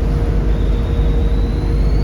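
Volvo B7RLE bus's 7.3-litre Volvo D7C diesel engine running hard with a low rumble. A turbo whistle starts about half a second in and slowly rises in pitch as the turbo spools up.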